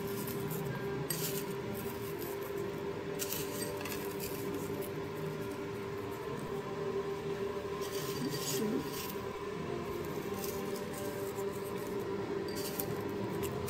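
Crispy fried shallots rustling and crackling in short dry bursts as fingers pinch them and sprinkle them over steamed rice rolls on a plate, four or five times, over a steady low hum.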